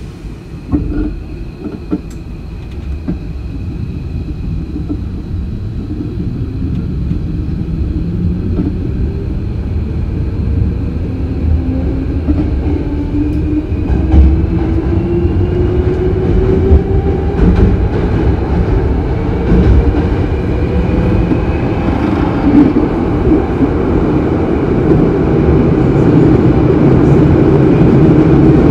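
Hankyu 8000 series electric train heard from inside the car while accelerating: the inverter-driven traction motors give a tone that rises steadily in pitch, over wheel and track rumble that grows louder throughout, with a few knocks about a second in.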